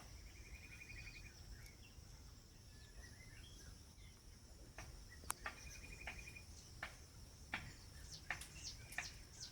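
Faint bird chirps: two short rapid trills and scattered sharp chirps that come more often in the second half, over a steady high-pitched drone.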